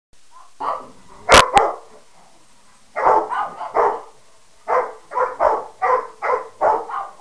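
Pet dogs barking back and forth at one another. A couple of barks come first, then two very sharp, loud barks just after a second in. After a short pause, quick runs of barks follow, about three a second.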